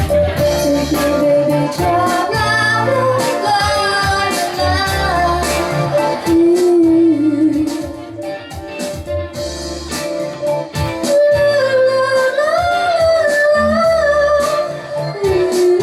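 Electronic music played live: a gliding lead melody over a repeating bass line and a steady drum beat.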